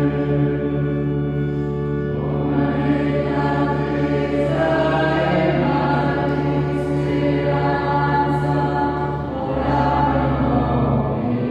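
A group of voices singing a slow hymn together during Mass, with long held notes and the pitch moving to a new note every couple of seconds.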